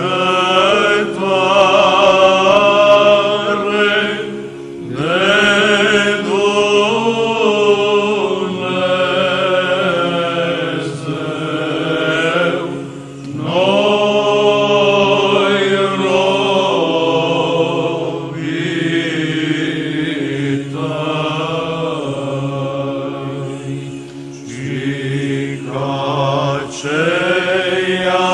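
Orthodox Byzantine chant: voices sing a slow, ornamented melody over a steady held drone (ison), pausing briefly between long phrases.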